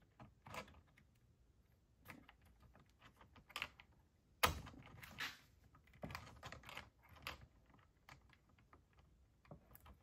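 Faint, scattered small clicks and taps of a new carburetor and its fuel line being worked into place on a STIHL MS210 chainsaw by hand, with the sharpest click about four and a half seconds in.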